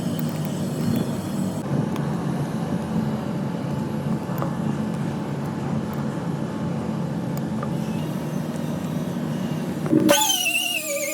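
Steady low mechanical drone, like a vehicle engine or machine running, with a noisy background. About ten seconds in it cuts off suddenly and music with a wavering melody takes over.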